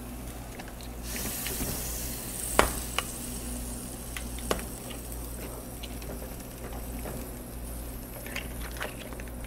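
Seafood, vegetables and stock sizzling in a sauté pan on a stove burner, a steady hiss that picks up about a second in. A few light clicks sound as lobster claws and tails are set into the pan by hand.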